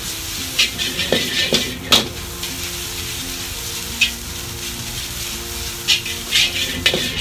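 Egg fried rice sizzling in a wok while a metal ladle stirs and scrapes it. Sharp clicks of the ladle hitting the wok come several times in the first two seconds, once about four seconds in, and again several times near the end.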